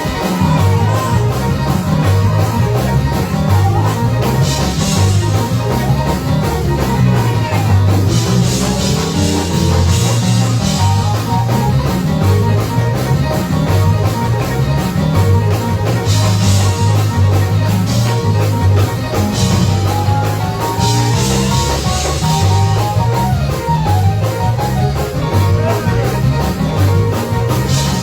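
Live gospel band playing praise-break music with a fast, steady beat on drum kit and cymbals, heavy bass and guitar.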